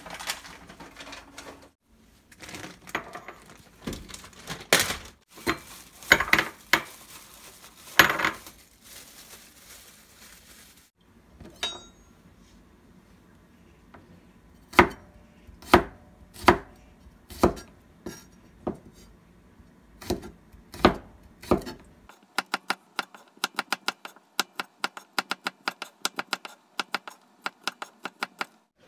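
Chef's knife slicing peeled garlic cloves on a wooden cutting board: slow single cuts at first, then from about two-thirds of the way in a quick, even run of strokes about four a second. Before that, kitchen items knock and clatter on the countertop.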